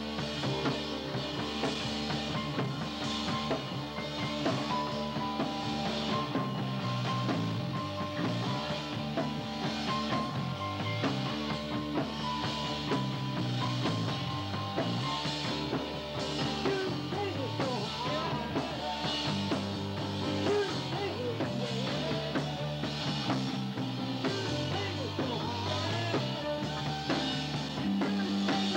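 Rock band playing a song together at full volume: drum kit with regular cymbal hits over a bass line, guitar and a held higher note through the first half.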